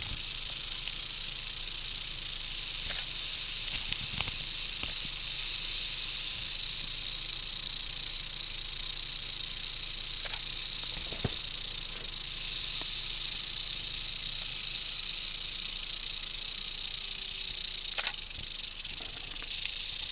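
Western diamondback rattlesnake rattling its tail in a steady, unbroken high buzz, the defensive warning of a coiled snake.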